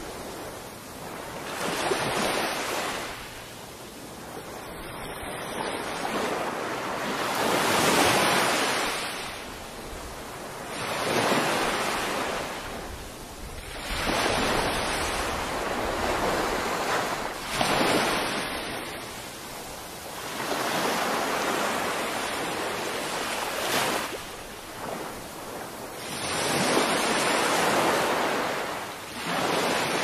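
Small waves breaking and washing up a sandy beach, the surf hiss swelling and falling every few seconds.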